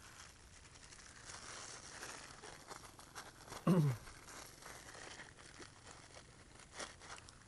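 Thin plastic bag crinkling and rustling as gloved hands handle it, with one brief louder sound sliding steeply down in pitch a little under four seconds in and a sharp click near the end.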